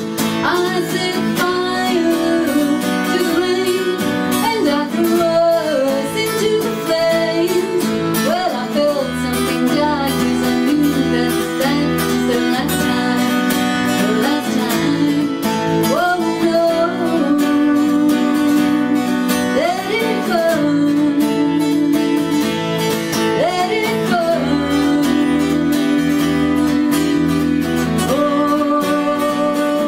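A woman singing with a strummed acoustic guitar and a Roland EXR-7 electronic keyboard, played live by a small band. Deep bass notes come in twice.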